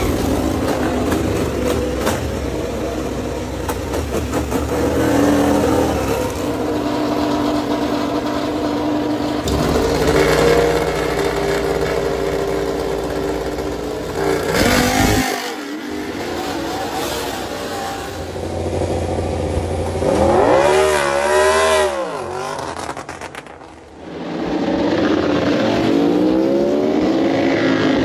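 MotoGP racing motorcycle engines at high revs, with pitch rising and falling as bikes accelerate, shift and pass; a bike's pitch swings sharply around twenty seconds in, the sound dips briefly a few seconds later, then another bike's engine climbs in pitch near the end.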